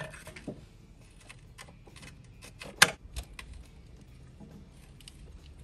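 Scattered light metallic clicks and rattles of a wrench on a serpentine belt tensioner as the belt is worked onto the alternator pulley, with one sharp clack about three seconds in.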